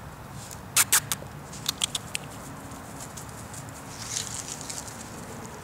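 A dog sniffing at the grass: two sharp sniffs about a second in, then a quick run of fainter ones. A rustle follows near the end.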